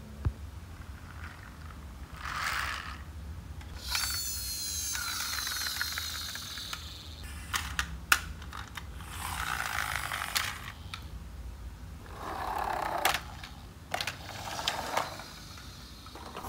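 Plastic toy vehicle wheels rolling and scraping across a tiled floor in several short bursts, the longest lasting about three seconds, with sharp plastic clicks in between.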